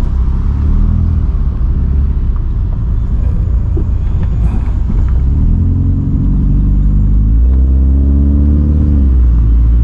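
Toyota Celica ST162's engine heard from inside the cabin while the car accelerates. The engine note rises twice and drops back each time as the car shifts up a gear, over a steady low road rumble.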